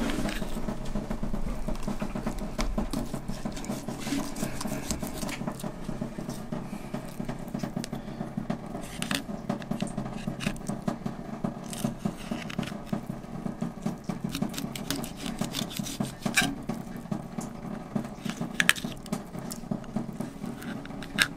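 Fillet knife cutting and scraping through a small sunfish on a cutting board, with a few sharp taps and clicks of the blade.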